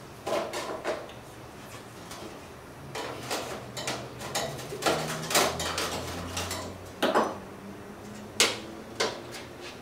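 Metal laboratory soil sieves knocking and clinking against each other, the stack and the scale as they are lifted apart and set down: a handful of sharp, irregular knocks with scraping between them.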